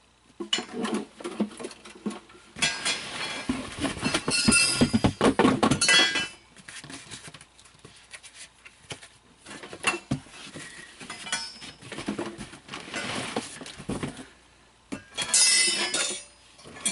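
Hard parts of an animatronic's support frame, metal poles among them, clinking and clattering as they are handled and fitted together. The clatter comes in spurts, busiest a few seconds in and again near the end.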